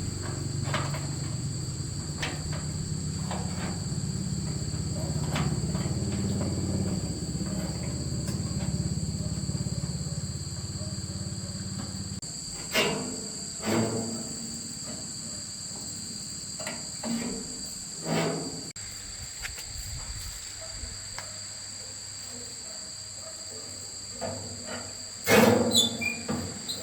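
Insects chirring steadily in two high, unbroken tones. A low machine hum runs under them and stops about halfway through, followed by a scattering of sharp knocks, the loudest cluster near the end.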